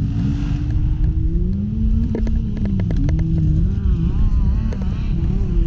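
Dirt bike engine running at low revs, its pitch wavering as the throttle is worked, with a few sharp clicks about two seconds in.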